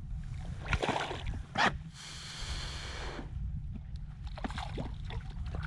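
Water splashing and knocks around a small fishing boat while a brook trout is played on a fly rod, over a steady low rumble. There are two short sharp sounds about a second in, then about a second of rushing, splashing noise.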